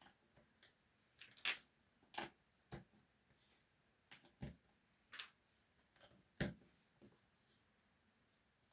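Faint, scattered clicks and light taps, about one a second, a few with a soft low knock, the loudest about a second and a half in and again near six and a half seconds.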